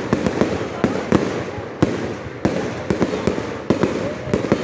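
Fireworks display: a rapid, irregular volley of sharp bangs and cracks, about a dozen in under five seconds, over a continuous rumble.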